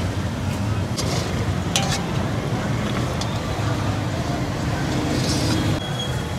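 Metal ladle scraping and knocking against a heavy iron kadhai as boiling jaggery and peanuts are stirred, with a few sharp clicks over a steady low rumble.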